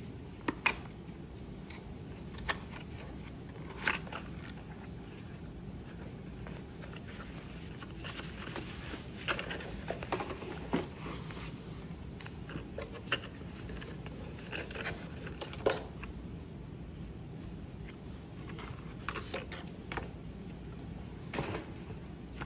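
Cardboard packaging and paper wrapping being handled: scattered sharp clicks and taps with short crinkling rustles, over a steady low hum.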